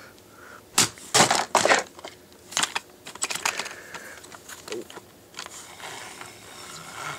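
A few sharp knocks about a second in, then lighter clicks and rattles: an Allen wrench set in the chuck of a Ryobi cordless drill being whacked and handled to break the tight chuck free.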